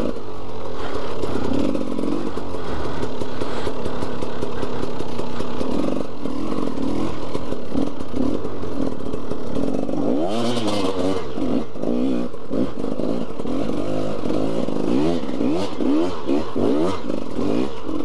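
KTM 300 EXC single-cylinder two-stroke enduro engine running under load, fairly steady in pitch at first. About halfway through it is revved up and down over and over as the throttle is opened and closed.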